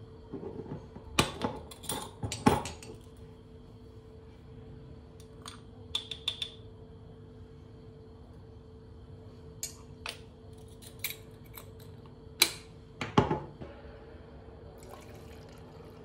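A metal teaspoon clinks and taps against glass while ground Turkish coffee is spooned from a glass jar into a glass cezve: scattered sharp clinks in small clusters, over a steady low hum.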